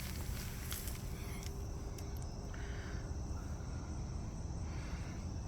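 Crickets chirping in a steady high-pitched night chorus over a low, even rumble, with a few faint clicks in the first two seconds.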